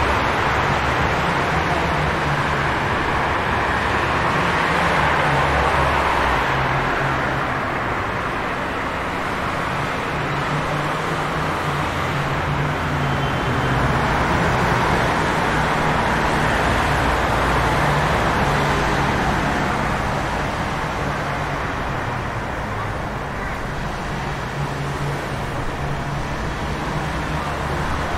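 Rainy city street ambience: a steady wash of traffic and rain with a low engine rumble underneath, slowly swelling and easing.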